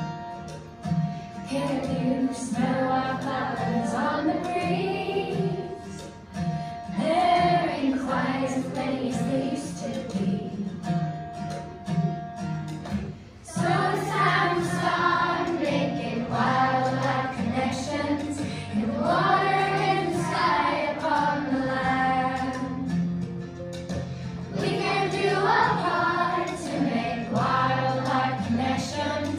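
A group of schoolchildren singing a song together, with instrumental accompaniment.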